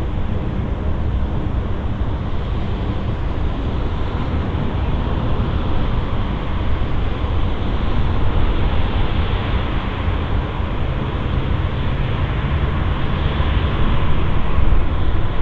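Boeing 747's four jet engines running on the runway: a steady, heavy rumble of jet noise that grows louder near the end.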